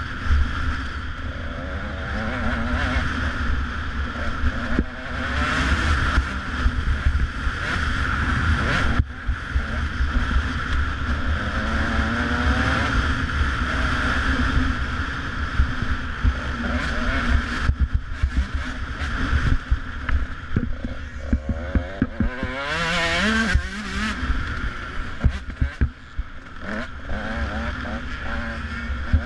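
Dirt bike engine revving hard and falling off again as the rider accelerates and shifts, with heavy wind buffeting on the camera's microphone.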